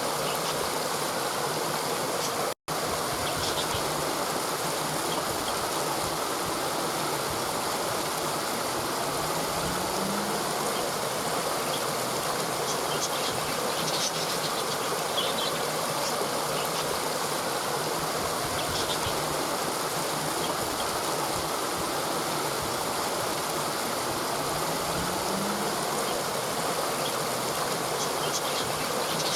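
Steady rushing of a waterfall, an even wash of falling water with no break in level, except for a momentary silent dropout about two and a half seconds in.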